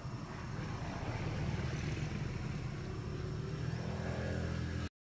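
Engine running steadily with a low hum. It cuts off suddenly just before the end.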